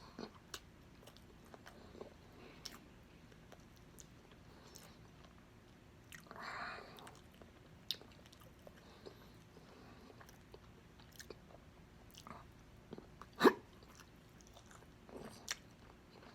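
Close-miked chewing of spicy pork adobo eaten by hand: soft wet mouth clicks and smacks, with one much louder sharp sound about thirteen and a half seconds in.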